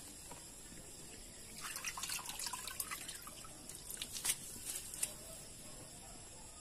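Chicken broth boiling in a wok, bubbling with a cluster of small pops and splashes as sotanghon glass noodles are lowered into it, then a few sharp ticks.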